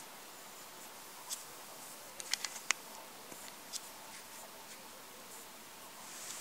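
Faint steady hiss with a few sharp clicks, a quick cluster of four or five about two seconds in.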